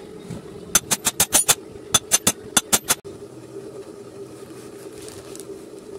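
A quick run of about a dozen sharp metallic clicks in two groups, within the first half, as gearbox parts are handled and knock against each other. A steady hum runs underneath.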